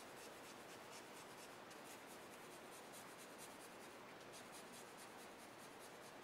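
Faint scratchy rustle of a brush-tipped blender pen loaded with odorless mineral spirits, stroking in quick, short linear strokes over colored pencil on drawing paper.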